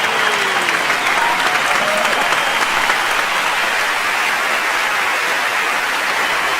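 A large crowd applauding steadily, with scattered cheers and shouts mixed into the clapping.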